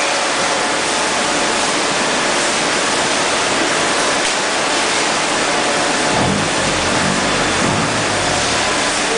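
Loud, steady machinery noise of a running PET bottle filling and packing line, with a low wavering hum joining about six seconds in.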